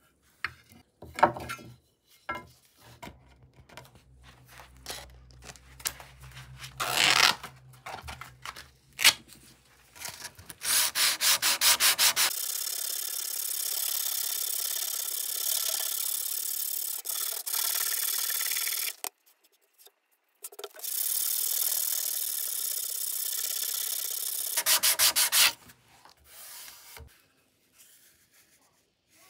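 Sanding on a trowel being restored: steady abrasive rubbing in two long stretches with a short break between them, after a run of scattered clicks and light knocks.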